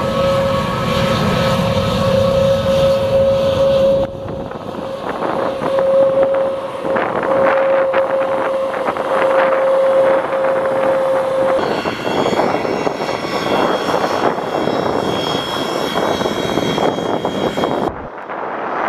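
Airbus A320neo airliner taxiing, its Pratt & Whitney geared turbofan engines running at low thrust with a steady hum and a held mid-pitched tone. The sound changes abruptly about 4 and 12 seconds in, and the tone drops away at the second change.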